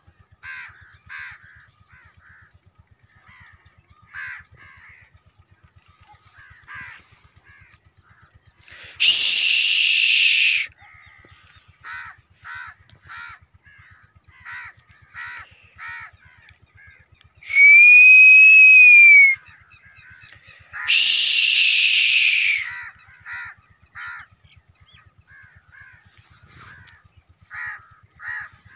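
Crows cawing repeatedly in short harsh calls, with three much louder, drawn-out calls, the middle one carrying a whistled pitch that rises then falls. A faint low pulsing hum runs underneath.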